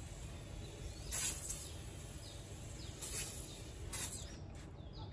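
Three short, hissing strokes of a brush scrubbing a fabric lampshade, about a second in, about three seconds in and about four seconds in, with faint bird chirps in the background.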